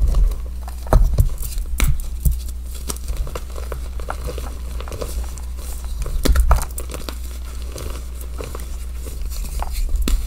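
Hands crushing and crumbling soft blocks of dyed gym chalk: dry crunching and crackling with scattered sharp cracks, the loudest about a second in and just past the middle, over a steady low hum.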